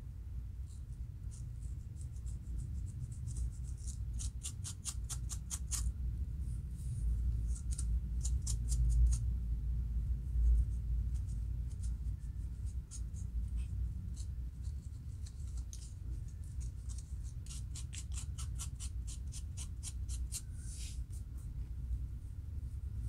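A fine-toothed plastic comb and fingernails scratching along a dry, flaky scalp between locs, lifting dandruff flakes. It comes in short, quick runs of scraping strokes, about ten a second at their fastest, over a low rumble that swells about eight or nine seconds in.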